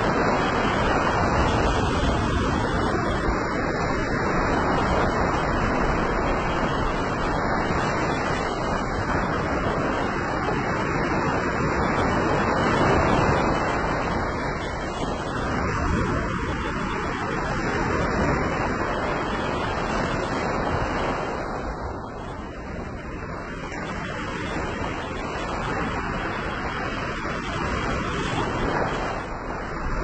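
Small sea waves breaking and washing up a sandy beach: a continuous surf wash that swells and eases, loudest a little before halfway.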